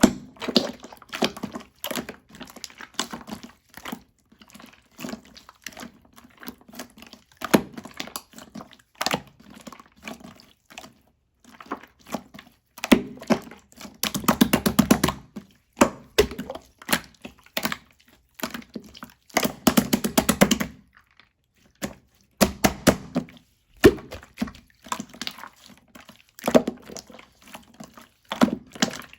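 Marbled slime being squeezed and pressed by hand: irregular sticky clicks and small pops of trapped air, with a couple of longer runs of rapid popping partway through.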